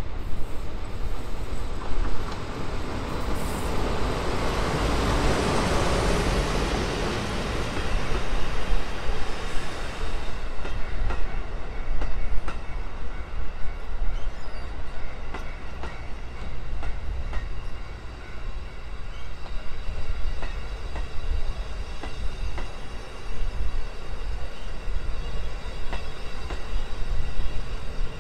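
DE10 diesel locomotive of a sightseeing train passing close by, loudest about five seconds in, then its passenger coaches rolling past with wheel clatter over the rail joints and a faint squeal as the train slows to stop at the station.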